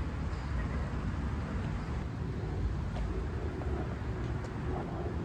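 Steady low outdoor background rumble with a faint hiss, of the traffic-noise kind, with a few faint light taps about three and four and a half seconds in.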